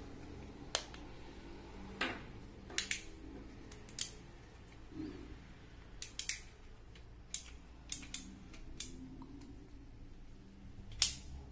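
Small metal parts of a Colt Single Action Army-style CO2 revolver clicking as its cylinder and loading gate are turned and worked by hand during oiling: about a dozen short, sharp clicks at irregular intervals, the loudest near the end.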